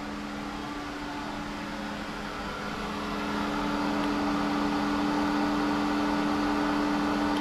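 Hayward Super Pump VS variable-speed pool pump running with a steady hum, with water moving through the 2-inch plumbing. About three seconds in it gets louder as its speed is stepped up from 2500 toward 2750 RPM.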